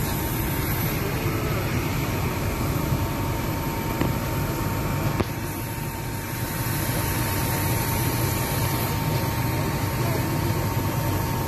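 Steady drone of a parked Airbus A220-300 airliner on the ramp, a constant low hum with a thin, steady whine over it.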